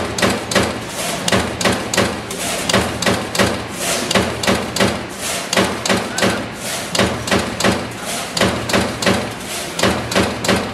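Amada Pega 357 CNC turret punch press punching sheet metal, a rapid, even series of sharp strikes about four or five a second over the machine's steady low hum.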